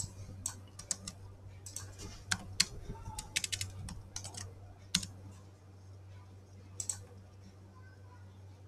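Computer keyboard keys clicking as a terminal command is typed: a quick run of keystrokes in the first five seconds, then a couple more near seven seconds, over a low steady hum.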